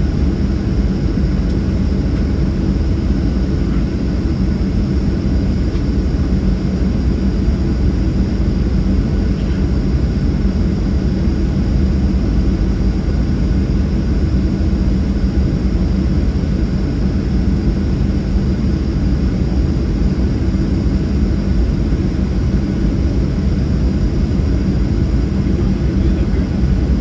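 Boeing 737-800's CFM56-7B turbofan engines running steadily at taxi power, heard inside the cabin: a constant, mostly low-pitched engine noise with a steady hum.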